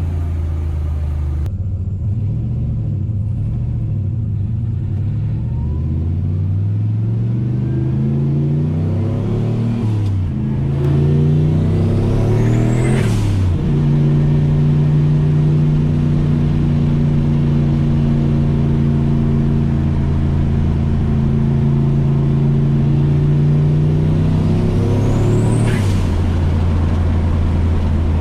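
Turbocharged 5.3 LS V8 in a C10 pickup pulling through the gears: the engine note climbs twice with a drop between, then holds a steady pitch before falling away near the end. It runs cleanly now that its clogged fuel-injector screens have been cleaned and the misfire is cured.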